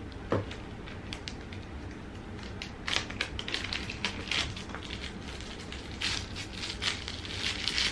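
Small clear plastic jewelry bag crinkling and rustling in the fingers as it is handled and opened: a run of quick, irregular crackles, busiest from about three seconds in.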